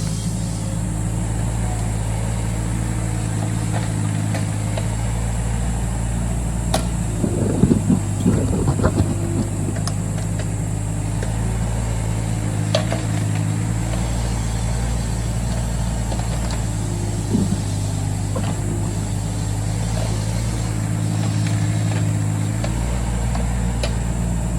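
Excavator's diesel engine running steadily while digging soil, with a flurry of knocks about eight seconds in.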